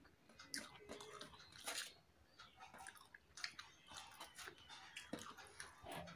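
Faint eating sounds: soft chewing and small wet mouth clicks, with fingers mixing rice on a steel plate.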